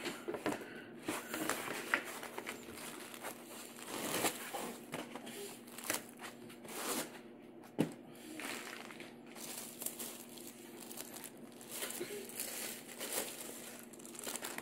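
Thin plastic wrapping bag crinkling and rustling as a laptop sealed in it is lifted out of its box and handled, with a few light knocks.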